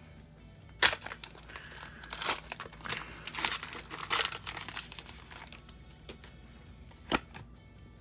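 Foil wrapper of a Pokémon booster pack being torn open and crinkled. There is a sharp rip about a second in, several seconds of crinkling, and a single short click near the end.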